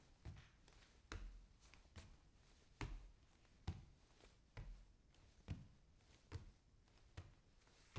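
Bare feet walking on a wooden floor at an even pace. Each step is a soft, low thud with a short slap, a little more than one step a second, with fainter taps between steps.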